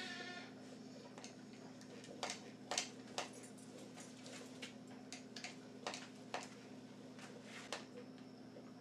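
Hand-held milking unit being worked by hand on a goat's teat, giving faint, irregular clicks about once or twice a second, over a low steady hum.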